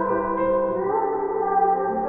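Background music: slow, held chords with no singing, changing chord about a second in.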